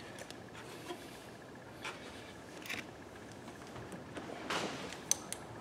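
Faint rubbing and scraping with a few light clicks, the sharpest near the end, from hands fitting the rubber fuel hose and its clamp onto a new inline fuel filter on a Kohler lawn tractor engine.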